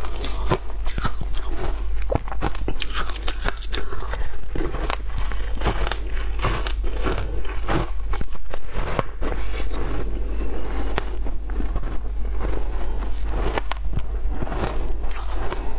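Close-miked biting and chewing of frozen shaved ice, a steady run of many sharp, crisp crunches.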